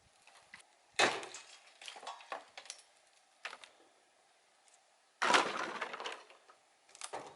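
Knocks and clatter of sawmill parts and packaging being handled and set down: a loud sharp hit about a second in, a louder one about five seconds in, and smaller knocks and scrapes between them.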